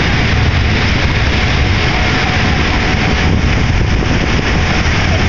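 Ferry's engines running as the hull pushes through broken lake ice: a loud, steady low rumble under a continuous rushing hiss.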